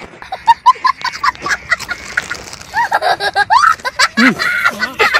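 Crinkling and rustling of a foil chips packet as a hand rummages in it and pulls snacks out, in a run of sharp crackles. Short rising and falling gliding sounds break in near the start and again from about three seconds in, one sliding down low.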